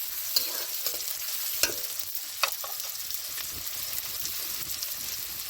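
Food frying in hot oil in a pan: a steady sizzle, with a few sharp clicks over it.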